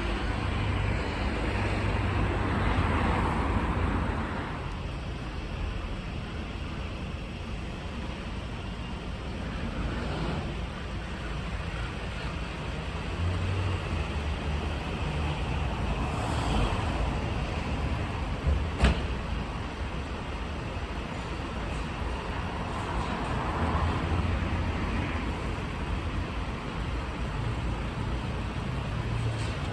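Mercedes Atego fire engine's diesel engine running, swelling louder a few times, with one sharp click about two-thirds of the way through.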